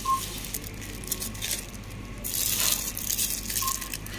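Crackly rustling and crinkling of thin plastic produce bags, as bagged bananas are handled, louder for a moment a little past halfway. Two short beeps sound, one right at the start and one near the end.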